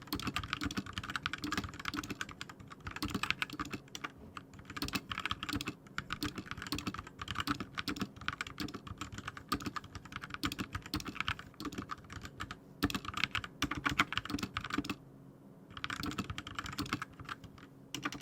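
Typing on an RK61 60% mechanical keyboard with linear red switches and HyperX double-shot PBT keycaps: a fast, continuous clatter of keystrokes with a short pause near the end.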